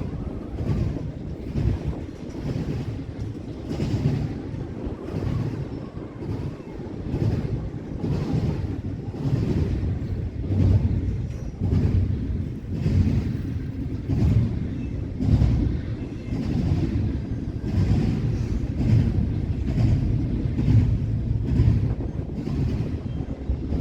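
Railroad cars rolling past, their wheels clacking over the rail joints in a steady, repeating rhythm over a low rumble.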